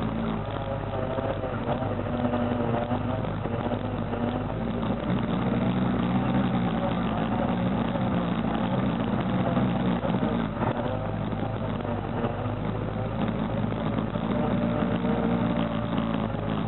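Single-cylinder four-stroke ATV engine running while riding a dirt trail, its pitch rising and falling as the throttle is worked.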